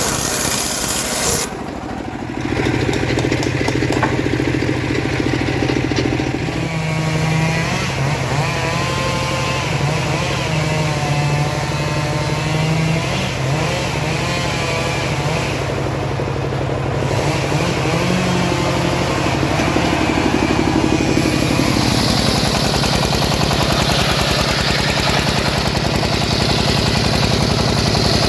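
Homemade engine-powered saw rig running while sawing teak, its engine holding a steady note with a wavering whine over it. Near the end a louder, harsher hiss of the blade cutting through the wood joins in.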